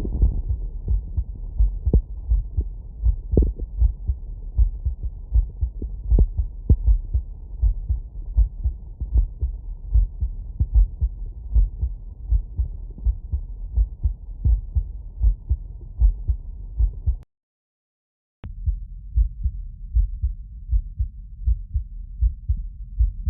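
Normal human heart sounds heard through a stethoscope: a steady run of low lub-dub thumps. About 17 seconds in the sound cuts out for about a second. A click follows, and the beats go on sounding more muffled.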